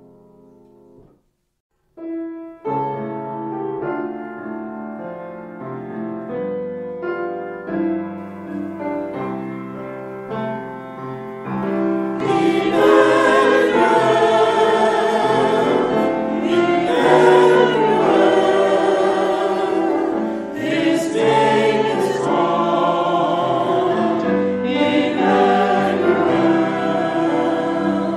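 Choir singing sacred music with instrumental accompaniment. It begins after a short silence about two seconds in and grows fuller and louder about twelve seconds in.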